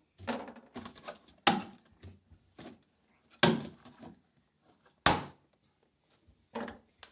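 Hard plastic clicks and knocks as the white plastic cover panel inside a Samsung refrigerator is handled and a small snap-in cover cap is pried off. Three louder snaps stand out, roughly two seconds apart, among softer taps.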